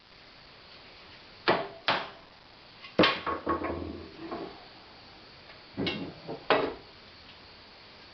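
A few sharp knocks at uneven intervals, a piece of scrap wood used to tap a stiff part of a cast-iron hand corn mill into place. The loudest knock, about three seconds in, is followed by a second of small rattling clicks.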